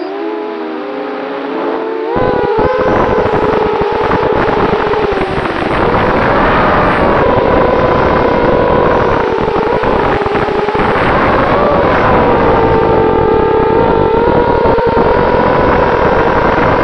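Eachine Falcon 250 quadcopter's brushless motors and propellers whining as it flies, recorded by its onboard camera. The pitch dips and bends at first, then rises about two seconds in and wavers with throttle, over a rush of wind noise.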